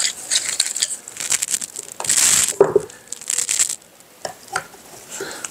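Rustling and scraping of gloved hands handling a sectioned wooden cleaning rod and laying it into a fitted, lined gun case, in uneven bursts with the loudest about two seconds in.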